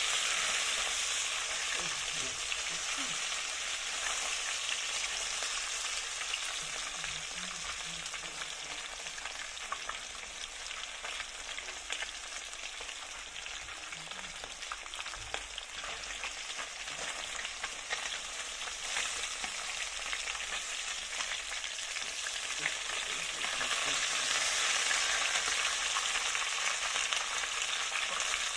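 Tilapia pieces frying in hot oil in a wok: a steady sizzle with fine crackling pops. It eases a little midway and grows louder again near the end.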